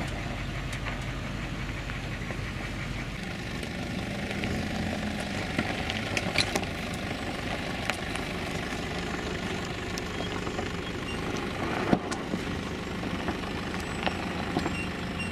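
Nissan Patrol's diesel engine running steadily at low revs as the 4x4 crawls over a rocky track, with scattered clicks and crunches from the tyres on loose stones.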